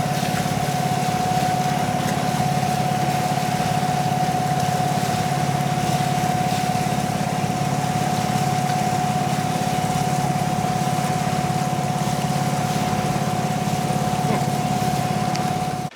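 Boat engine running steadily: a low, evenly pulsing drone with a steady whine above it.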